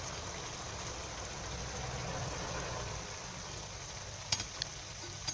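Gram-flour dough spiral deep-frying in hot oil in a pan: a steady sizzle of bubbling oil, with two light clicks a little after four seconds in.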